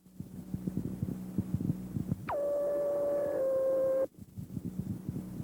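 Fire-department two-way radio between transmissions: crackling static over a low hum. About two seconds in, a tone swoops down in pitch and holds steady for nearly two seconds, then cuts off sharply.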